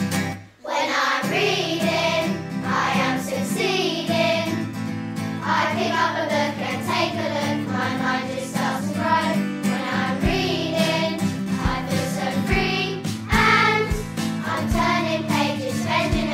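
Children's song: singing voices over backing music, starting about a second in after a brief break. A low drum beat joins about ten seconds in, roughly once a second.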